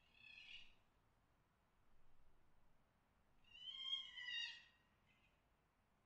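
Red fox mating call: two high, harsh screams. A short one comes at the start, and a longer, louder one about three and a half seconds in that drops in pitch as it ends.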